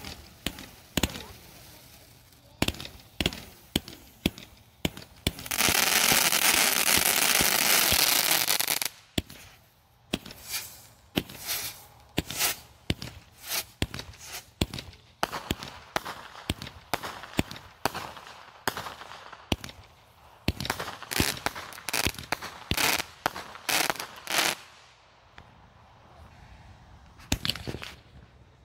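Consumer fireworks going off: many sharp pops and bangs, with a loud steady hiss for about three seconds starting some five seconds in, then quick strings of crackling pops.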